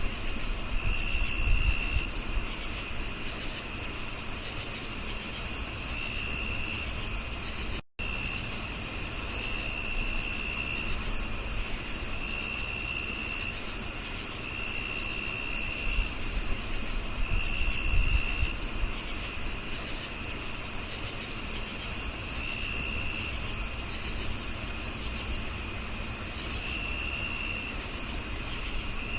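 Crickets chirping together: one steady high trill, one regular chirp about twice a second, and a lower trill that comes and goes in bursts of about a second. The sound cuts out for an instant about eight seconds in.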